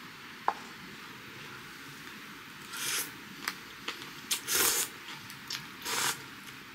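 A person slurping instant ramen noodles from a stainless steel cup: three slurps in the second half, the middle one the longest, with a sharp tap near the start and a few light clicks of chopsticks on the cup.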